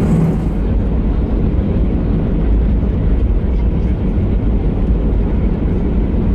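Airbus A320 cabin noise while taxiing: the engines at low taxi thrust and the aircraft rolling on the taxiway give a steady low rumble, heard from a window seat beside the wing.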